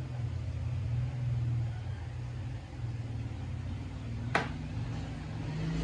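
A steady low rumble, with one sharp click about four seconds in.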